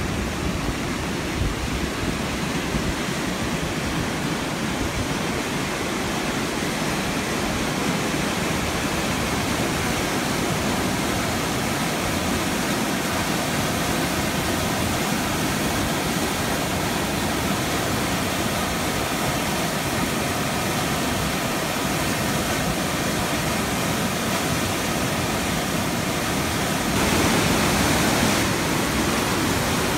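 Floodwater pouring over a spillway in a steady rush, a little louder for a moment near the end.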